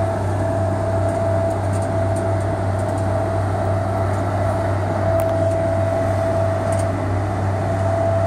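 Inland cargo ship's diesel engine running steadily under power while the vessel turns: a constant low drone with a steady higher whine over it.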